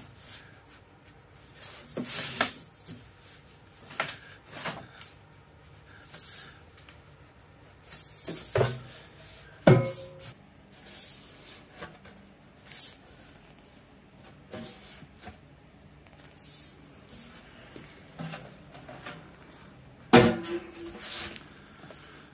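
Thin black sheet-steel stove pipe being pressed and squeezed by hand to bend it from oval back to round after its seam has been snapped together. The sound is scattered rubbing and scraping with sheet-metal creaks and clicks, plus a few hollow metal knocks that ring briefly, the loudest about ten seconds in and near the end.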